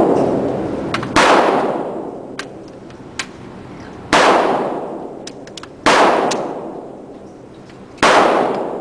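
Gunshots at a shooting range: five single shots at uneven intervals of one to three seconds, each a sharp crack followed by a long ringing, echoing decay.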